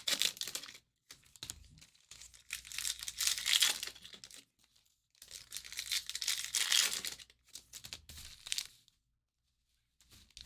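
Foil trading-card pack wrappers being torn open and crinkled, in four bursts with short pauses between them.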